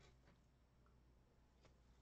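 Near silence: room tone, with a couple of faint clicks.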